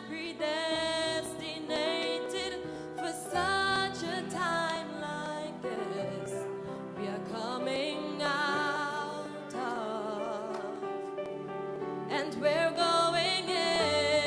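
A woman singing a slow gospel song with wide vibrato, over sustained instrumental accompaniment.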